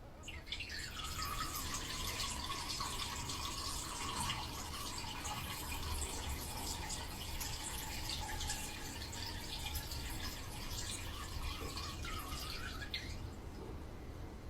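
Water running and splashing, as from a tap, for about thirteen seconds, then cut off.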